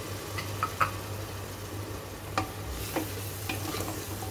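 Wooden spatula stirring and scraping a spice masala frying in an aluminium pressure cooker, with a steady sizzle and a few short knocks of the spatula against the pot. A little water has just been added to the masala while it fries.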